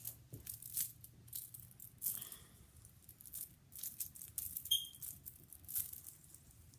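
Small plastic and metal fidget spinner parts clicking and rattling as they are handled and fitted together, in light irregular ticks, with a couple of brief high pings.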